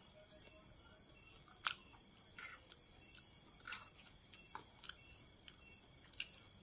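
Quiet chewing of a mouthful of Maggi instant noodles, with about six short, sharp mouth clicks and smacks scattered through.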